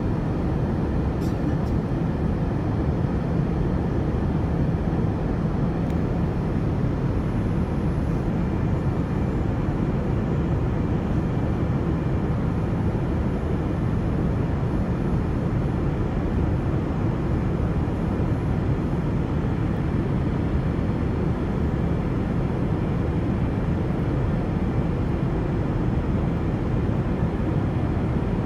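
Steady cabin noise of a Boeing 787-9 Dreamliner in flight, heard from a window seat: an even, low-pitched rumble of engines and airflow at a constant level.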